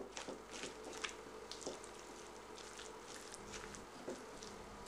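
A spatula stirring and mashing a thick, wet filling of egg yolk, tuna, corn and sour cream in a glass bowl into a paste: faint squelching and scraping strokes at an uneven pace, with light taps against the bowl about a second in and again near the end.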